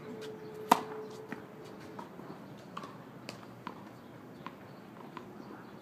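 Tennis racket striking the ball on a serve: one sharp, loud crack about three-quarters of a second in, followed by fainter taps and knocks every half second to a second.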